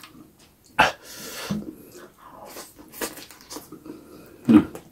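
Close-miked chewing and wet lip-smacking of soft, spicy food, with a few sharp mouth smacks or sniffs: one about a second in, one at three seconds and a louder one near the end.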